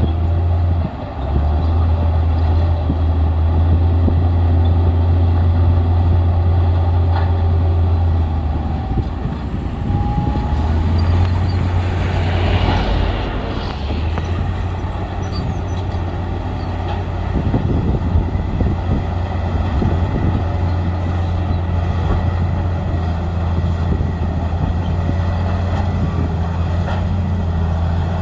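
Heavy diesel earthmoving machinery running steadily with a deep engine drone. A brief hiss comes about twelve seconds in, and some rougher clatter a few seconds later.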